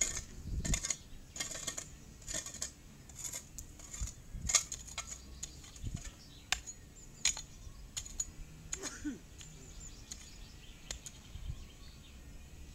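Metal shovel and digging-tool blades scraping and clinking in trench soil as two people dig by hand: irregular sharp scrapes, one or two a second at first, fewer in the second half.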